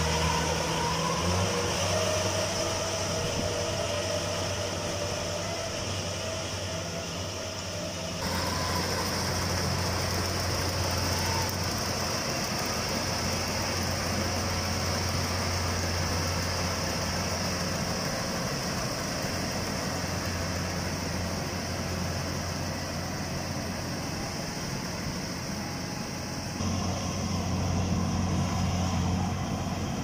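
Rice combine harvester running steadily while harvesting, a low engine drone with a steady high hiss above it. The sound steps up a little about eight seconds in and again near the end.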